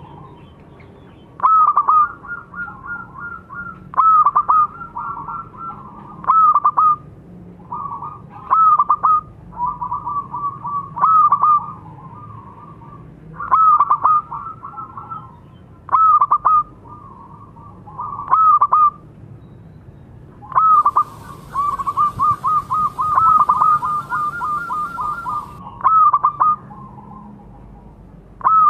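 Zebra dove cooing: its quick, staccato song of short notes, repeated in phrases every two seconds or so, with a longer rolling run about three quarters through.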